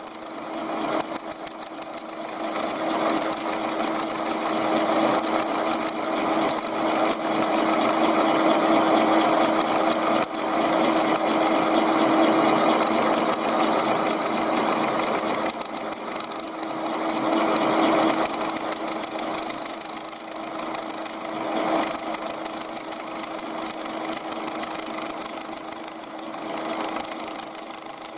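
Milling machine running with its end mill cutting around the rim of a thin tin can lid: a steady motor hum under a rasping, chattering cut that rises and falls in loudness. The thin, loosely clamped can vibrates under the cutter.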